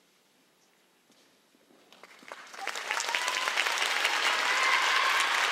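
Audience applauding, starting about two seconds in and quickly building to steady clapping.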